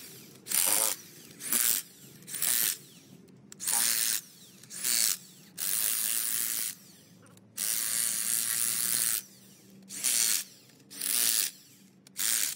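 Corded electric impact wrench hammering on the rocker-arm bolts of a diesel engine's cylinder head. It goes in about ten short bursts, most about half a second long and a couple about a second long, with brief pauses between them.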